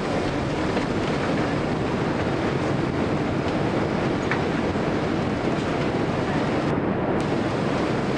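Airliner cabin noise as the plane rolls along the runway: a steady rumble of engines and wheels, with a few faint knocks.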